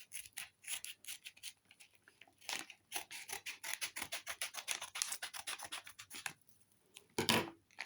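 Scissors cutting along packaging in a quick run of small snips and rasps, with a short lull and a louder snip-and-rustle near the end.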